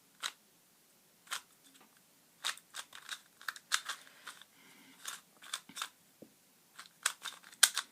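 MoFang JiaoShi MF2S 2x2 speed cube being scrambled by hand: a quick, irregular run of plastic clicks and swishes as the layers are turned.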